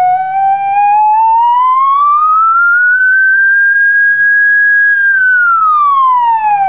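Smartphone gauss meter app's audio tone: a steady electronic whistle that glides up over about three seconds, holds at the higher pitch, then glides back down near the end. The pitch follows the app's magnetic field reading, so the rise marks a stronger field being measured.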